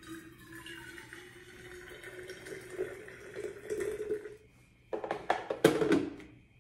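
Water poured from a stainless steel electric kettle into a jug, a splashing pour whose pitch rises as the jug fills; it stops about four and a half seconds in. Then comes a quick run of clicks and knocks as the kettle and the jug's lid are handled.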